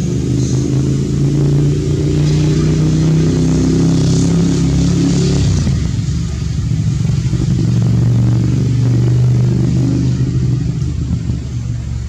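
A motor vehicle engine running close by, its pitch shifting higher for a few seconds and then settling lower.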